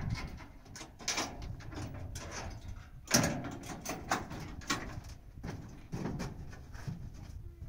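Irregular knocks and clanks from a pickup truck's steel cargo bed and rails as someone climbs into it, the loudest about three seconds in.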